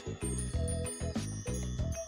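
Upbeat cartoon background music with a steady beat.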